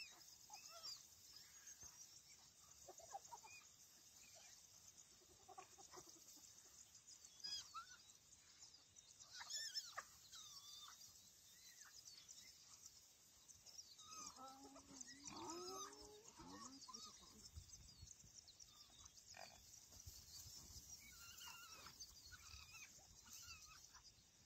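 Faint, scattered calls of spotted hyenas squabbling over a kill, short squeals and grunts that slide up and down in pitch. The loudest cluster comes a little past the middle, over a steady high hiss.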